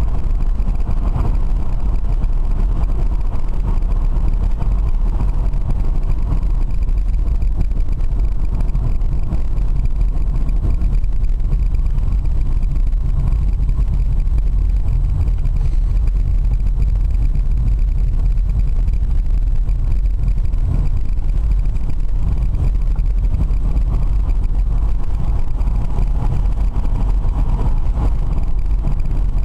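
Steady low rumble of road and wind noise inside the cabin of an electric-converted BMW while it drives, with no engine note.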